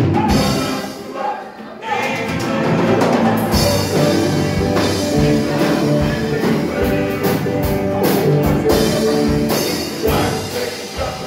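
Live gospel praise-and-worship band playing, with drum kit, electric guitars and keyboard, and voices singing. The band thins out briefly near the start, then comes back in full.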